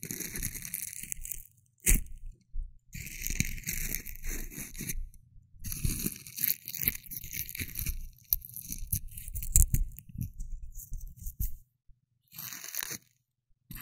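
A rose being handled right at the ears of a binaural dummy-head microphone: crinkling, rustling and crunching in bursts a second or two long, separated by short pauses, with a sharp crack just under two seconds in.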